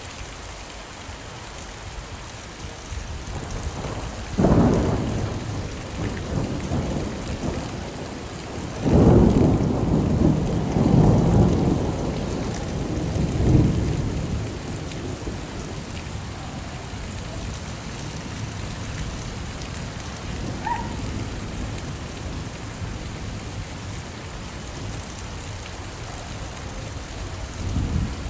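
Steady rain falling, with thunder rumbling: a short roll about four seconds in and a longer, louder one from about nine to fourteen seconds.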